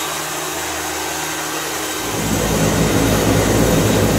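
Aircraft engines running: a steady high whine and hiss, then about two seconds in a louder, deeper engine drone with a steady low hum comes in.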